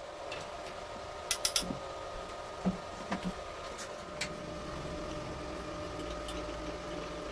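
A steady machine hum on two even pitches, with three quick sharp clicks about a second and a half in and a few softer knocks shortly after.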